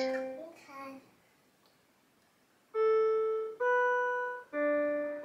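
A child sings a few notes, then after a pause plays three single notes on a toy piano, one at a time, each held and fading away, the last one lower.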